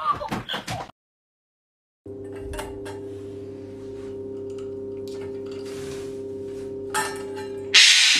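Steady hum of several held tones with faint ticks. Near the end come two harsh squawks from a male eclectus parrot, the second the loudest, part of a tantrum over an empty almond bowl.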